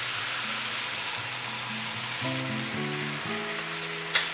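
Pork ribs sizzling in caramel sauce in a frying pan as they are stirred with chopsticks, a steady frying hiss. A single sharp click near the end, over soft background music.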